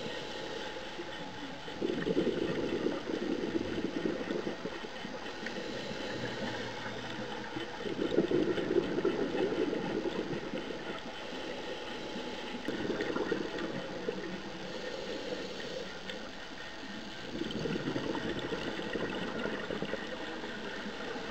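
Scuba regulator exhaust bubbles gurgling in four bursts, one per exhaled breath, each two to three seconds long and about five seconds apart, heard underwater over a steady hiss.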